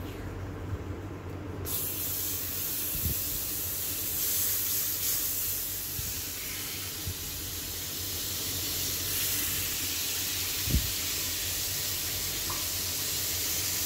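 Margarine sizzling as it melts in a hot wok, the hiss starting suddenly about two seconds in and running on steadily. A few light taps of the spoon on the wok, the loudest near the end.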